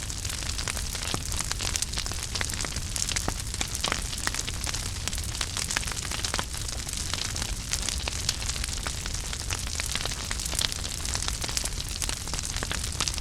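Wood fire crackling in a fireplace: many short, sharp pops and snaps over a steady hiss and a low rumble.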